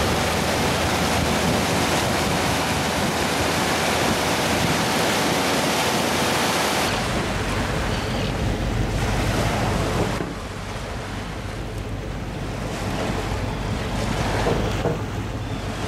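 Motorboat running at speed: loud rushing and splashing of the bow wave and spray against the hull over a steady engine hum. About seven seconds in it changes abruptly to a quieter low engine rumble, with a few small knocks near the end.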